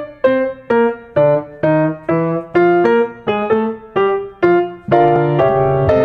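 Background piano music: single notes struck about twice a second, each dying away, with fuller held chords from about five seconds in.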